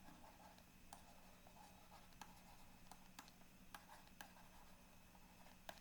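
Near silence: room tone with a faint steady hum and a dozen or so faint, scattered clicks and taps.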